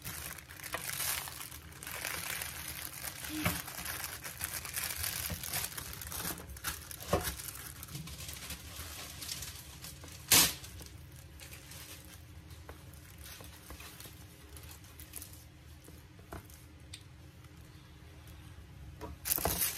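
Thin plastic crinkling and rustling as gloved hands handle food wrapped in a plastic bag, with a few sharp clicks, the loudest about ten seconds in. The rustling is busiest in the first half and fainter later.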